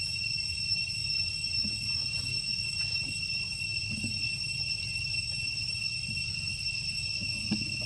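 Steady high-pitched insect drone, one unbroken even tone with a fainter higher one above it, over a low background rumble.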